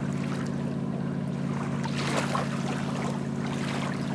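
A steady motor hum at an even pitch, with a few faint ticks over it.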